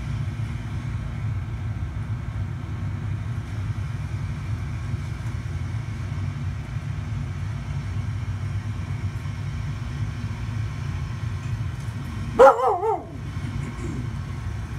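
A Carolina Dog (American Dingo) gives one short, loud bark with a wavering pitch about twelve seconds in, reacting to the animals on the TV. Under it a steady low rumble runs throughout.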